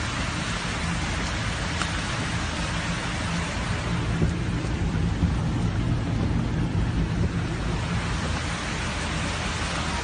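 Heavy rain falling steadily, an even hiss with a low rumble underneath.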